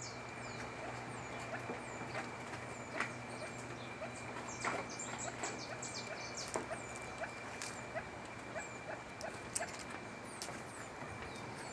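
Small animals chirping and squeaking: many short high calls, several falling in pitch, with a few sharp clicks over a steady hum.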